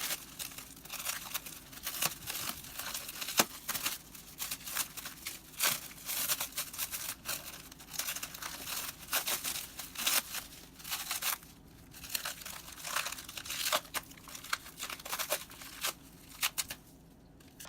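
Plastic packaging of new desktop memory modules being handled and pulled open: a dense run of irregular crinkles and crackles, with one sharper crack about three seconds in.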